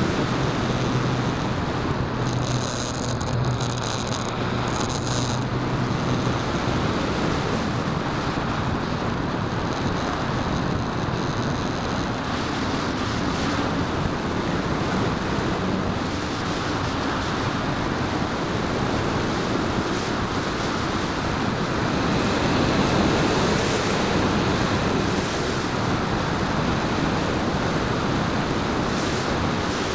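Airflow rushing over the microphone of an onboard camera on a radio-controlled Edge 540 model aerobatic plane in flight. A steady motor hum with a higher whine sits under it for the first several seconds, then fades into the rush.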